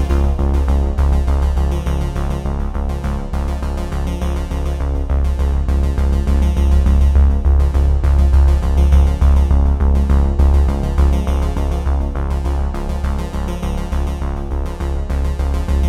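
Background music: synthesizer-led electronic music with a heavy bass line and a steady beat.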